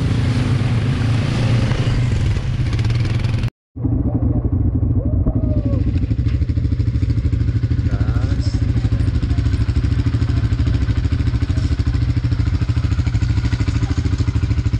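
A motor vehicle's engine running steadily with an even low pulse, broken by a brief cut to silence about three and a half seconds in.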